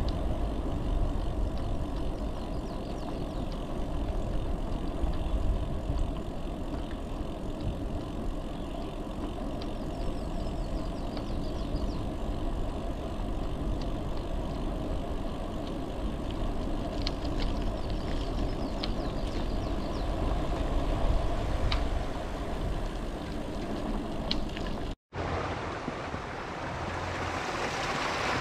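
Wind rumbling on the microphone and bicycle tyres rolling along a trail, steady, with a few light clicks in the second half. Near the end the sound cuts out for a moment and gives way to a small creek waterfall rushing over rocks.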